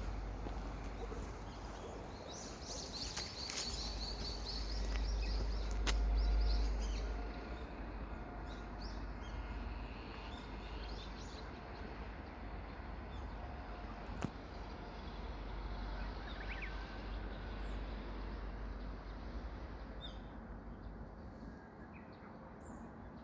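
Outdoor ambience with wind rumbling on the microphone, swelling a few seconds in, and birds chirping, most busily near the start. A single sharp click about two-thirds of the way through.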